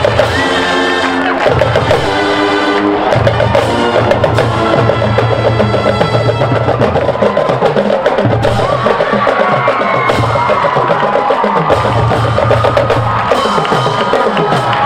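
Marching band playing: held brass chords over a busy drumline, the chords standing out most in the first few seconds.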